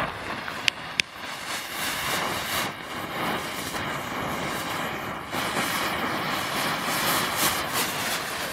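Small ground fountain firework burning: a steady, loud hiss of spraying sparks with crackle, after two sharp pops within the first second.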